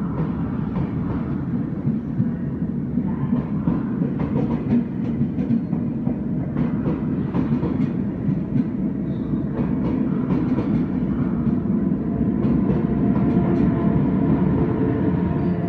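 SBB double-deck intercity coaches rolling past on the rails, a continuous rumble with repeated wheel clicks over rail joints. Near the end the Re 460 electric locomotive pushing at the rear goes by and the sound grows louder.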